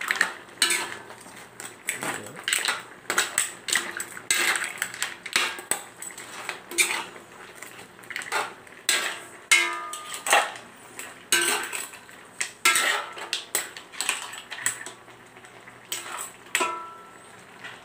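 Metal spoon scraping and clanking against a metal wok as a coconut-milk seafood stew with crabs and mussels is stirred: irregular strokes about one or two a second, a few with a short metallic ring.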